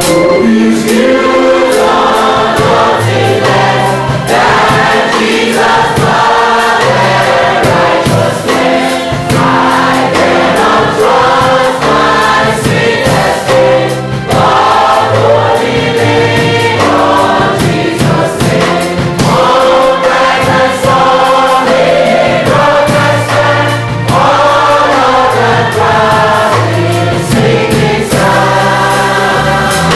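Church congregation singing a hymn together, with a steady bass accompaniment.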